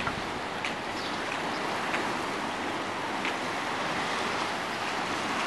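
Steady wash of small sea waves breaking on a sandy harbour beach, with a few faint clicks over it.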